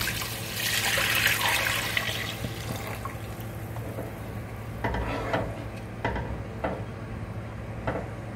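Coconut milk and water poured from a steel vessel into a hot pan of fried vegetables, splashing for about two seconds. A wooden spatula then stirs the liquid, with a few light knocks against the pan.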